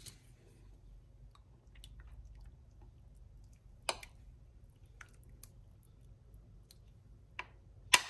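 A metal spoon spreading white sauce over minced-meat sauce in a glass baking dish: quiet wet squishing with a few sharp clicks, the loudest near the end.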